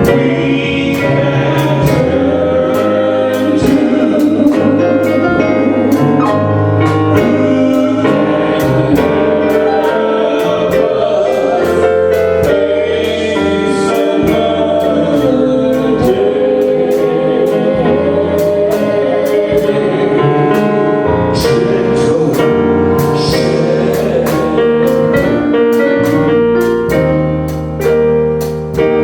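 Gospel music with a choir singing over piano, bass and a steady drum beat.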